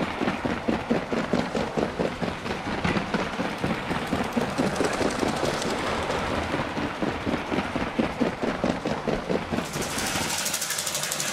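Lego electric toy train running close by on its plastic track, its wheels and motor making a quick, even, rhythmic clatter. Near the end a brighter, hissier rattle takes over.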